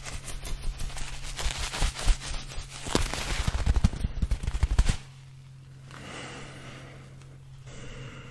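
Small rubbery balls squeezed and rubbed in the hands right at the microphone: a fast run of crackling clicks that grows denser and louder, then stops about five seconds in, leaving a faint hiss. A low steady hum runs underneath.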